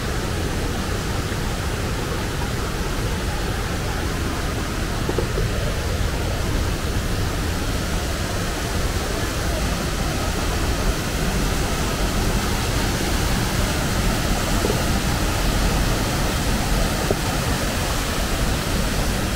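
Waterfall on a rocky mountain stream: steady rushing and splashing of white water pouring over boulders, a little louder in the second half.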